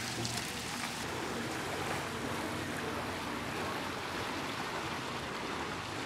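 Steady rushing water at a canal lock, with a faint low steady hum underneath.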